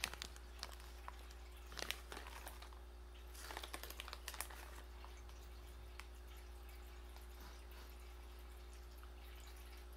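Faint rustling and clicks from a plastic candy bag in the first few seconds as a piece is taken out, then quiet room tone with a steady low hum.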